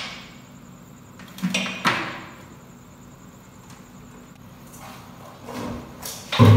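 Kitchen clatter: a metal cooking pot knocked and scraped against a plastic serving tray as boiled rice and potatoes are emptied onto it. Two knocks come about one and a half to two seconds in, fainter ones later, and a louder clank near the end.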